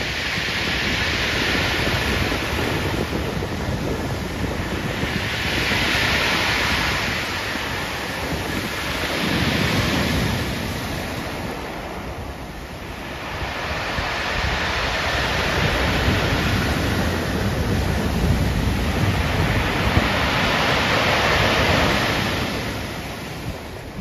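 Pacific Ocean waves breaking and washing up a pebble beach, the surf swelling and falling as each wave comes in, with wind buffeting the microphone.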